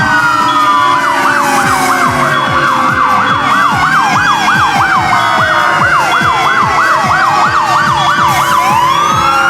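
Several fire truck sirens sounding at once. Slow wailing tones rise and fall, and from about a second in until near the end a fast yelp warbles about three times a second, over a short high tone that keeps switching on and off.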